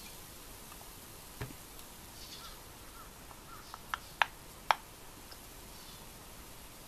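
Ice clinking against a drinking glass as the drink is tilted: a dull knock about a second and a half in, then three or four sharp, ringing clinks a little past the middle.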